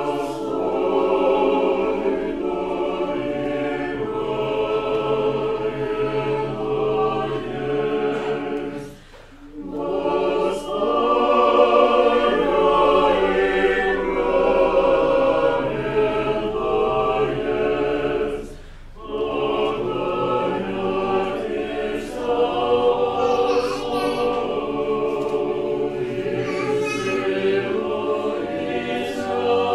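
Mixed church choir singing Orthodox liturgical chant a cappella in several parts, in long sustained chords, with two brief pauses between phrases about nine and eighteen seconds in.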